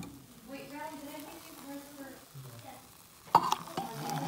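A faint voice in the background, and about three and a half seconds in a sharp clink as a pot knocks against the rim of a stainless steel thermos, with tea then pouring into it.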